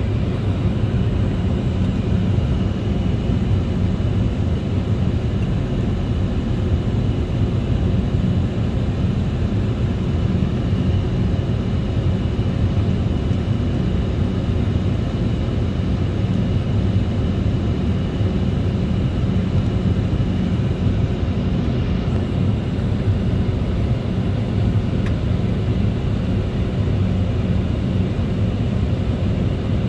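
Inside the cabin of an Embraer E190 airliner, its two GE CF34 turbofan engines running: a steady low rumble with a few faint steady whining tones above it, level throughout.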